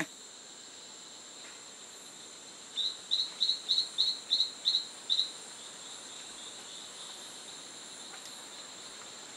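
Rainforest ambience: a steady high-pitched insect drone, with a run of about eight short high chirps, about three a second, between three and five seconds in.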